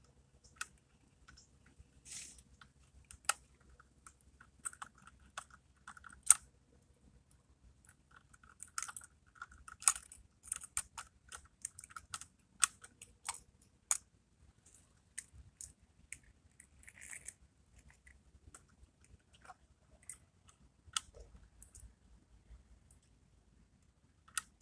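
Irregular small clicks, taps and light plastic clatter as a First Gear scale-model rear-loader garbage truck and its toy trash carts are worked by hand: carts being set against and tipped at the rear hopper.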